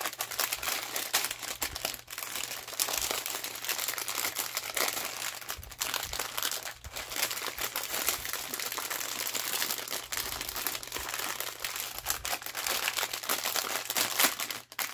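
Plastic bags crinkling as they are handled, a continuous crackly rustle with a few brief pauses.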